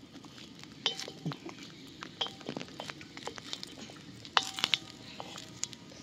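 Wooden spatula stirring and scraping pieces of dried coconut on a hot iron tawa, with scattered sharp clicks and knocks, some with a brief metallic ring, clustering most densely about four and a half seconds in.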